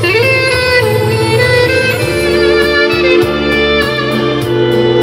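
A woodwind instrument playing a sustained melody, sliding up into a long held note at the start and then moving on in smooth phrases, over a bass accompaniment.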